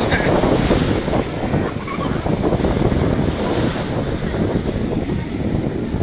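Sea waves breaking and foaming up onto a beach, a steady rushing surf that swells and eases, with wind buffeting the microphone.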